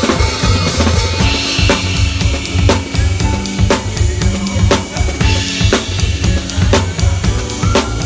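Drum kit played in a tight funk-soul groove: snare backbeats and bass drum over hi-hat, with the rest of the band's bass and held notes playing underneath.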